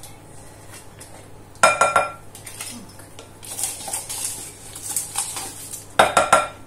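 Spoon scraping yogurt out of a plastic pot and knocking against a glass mixing bowl: a quick run of ringing clinks about one and a half seconds in, softer scraping in the middle, and another run of four clinks near the end.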